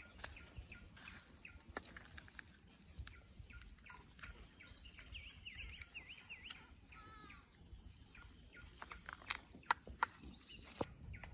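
Faint bird calls, with a run of quick rising-and-falling notes around the middle and another wavering call just after. Scattered light clicks and taps come from a small plastic phone and a stick being handled.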